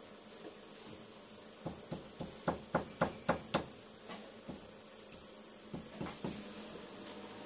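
A machete blade chopping with quick sharp knocks, a run of about eight at roughly four a second, growing louder, then a few single knocks. Behind it runs the steady high-pitched drone of insects.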